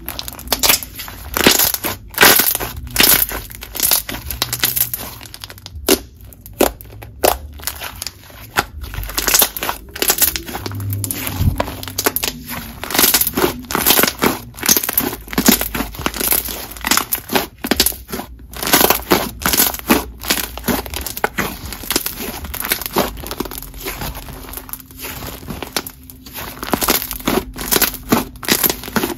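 Thick jelly slime being squished, folded and pressed between the hands, giving a dense, irregular run of sharp clicks and pops.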